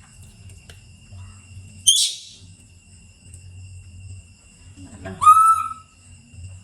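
A baby monkey's high, whistle-like coo call about five seconds in, rising and then held briefly, with a short sharp squeak about two seconds in.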